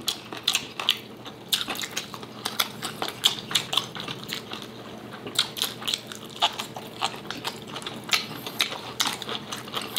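Close-miked eating: two people chewing food, with a steady run of wet mouth smacks and clicks.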